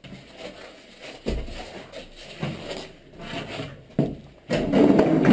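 Footsteps and the rustle of clothing and gear as airsoft players move crouched across a debris-strewn concrete floor, with a few dull thumps. A louder, muffled noise sets in during the last second.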